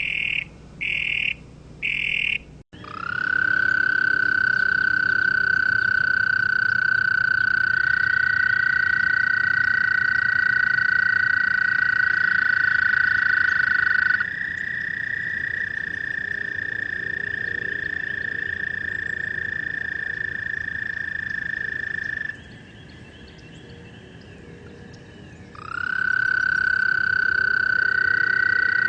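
Toads calling: a few short calls in quick succession, then long, steady high trills held for many seconds. Two toads overlap at slightly different pitches.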